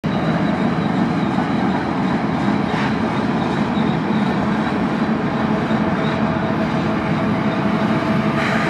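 Union Pacific mid-train distributed-power diesel locomotives and freight cars rolling past as the train descends the grade. The locomotives keep up a steady low drone with a thin high whine over the rolling noise.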